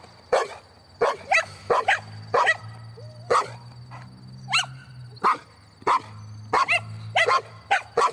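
A dog barking excitedly during play, about a dozen short, sharp barks at an uneven pace of one or two a second.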